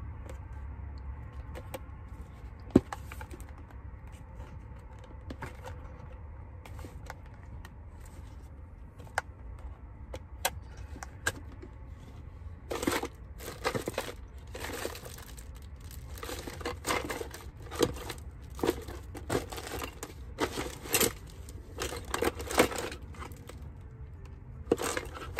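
Rummaging through bags and containers: rustling and crinkling with scattered clicks and knocks of handled items, much busier from about halfway through, over a low steady hum. One sharp knock about three seconds in.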